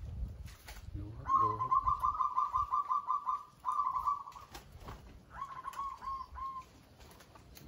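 Zebra dove cooing: a rapid run of many short, clipped notes lasting about two seconds, a brief burst after it, then a shorter phrase of about five notes.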